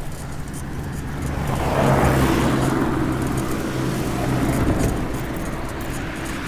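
A truck drives past close by on the road: engine hum and tyre noise build to a peak about two seconds in, then fade slowly as it moves away.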